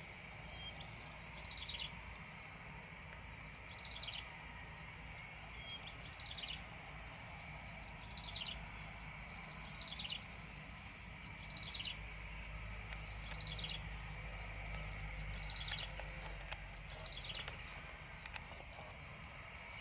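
A bird repeats a short call that falls in pitch, about every two seconds, nine times. Underneath is a faint, steady low rumble from the idling jet engines of a taxiing Airbus A320, swelling a little after the middle.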